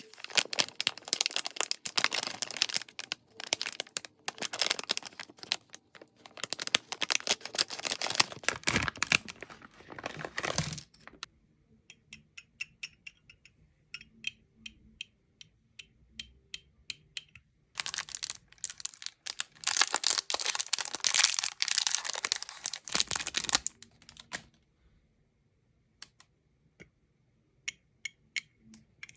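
Plastic blind-bag packaging crinkling and tearing in two long stretches, with sparse small clicks and taps of handling in between.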